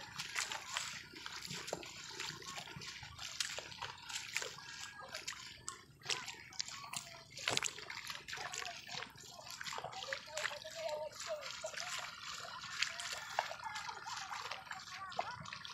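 Feet wading through the shallow water and mud of a flooded rice paddy: irregular splashing and sloshing.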